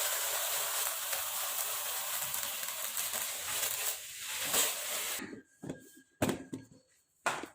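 Electric mixer grinder running steadily as it grinds onion, garlic and green chillies into a paste. It cuts off about five seconds in, followed by a few short knocks.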